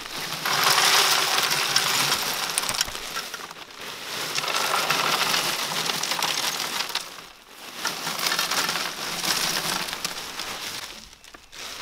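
Ice pouring from a plastic bag into the wooden tub of an ice cream freezer, rattling down around the canister with the bag crinkling, in three long pours with short breaks about 3.5 and 7.5 seconds in.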